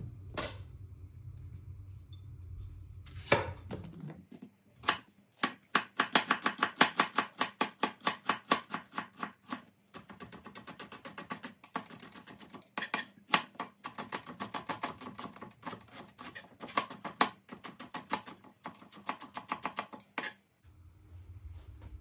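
Chef's knife slicing onions on a bamboo cutting board: quick, even knocks of the blade on the wood, several a second, starting about four seconds in and stopping shortly before the end. A couple of single knocks come first as the onions are set on the board.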